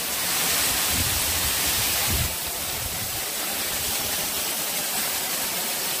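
Tall waterfall's water falling as a curtain of spray and splashing onto rock close by: a steady rushing hiss, a little louder for the first two seconds.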